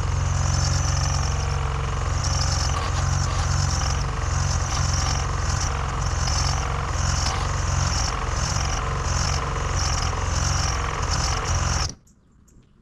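Starter motor cranking a Saturn's seized engine, which labours round slowly with a rhythmic catch about one and a half times a second. The cranking stops abruptly near the end. The engine is locked up after running on laundry detergent in place of oil, which the owner takes for a probable spun bearing.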